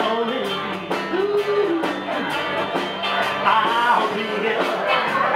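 Live band playing a song: a man singing into a microphone over electric guitars, bass guitar and drums keeping a steady beat.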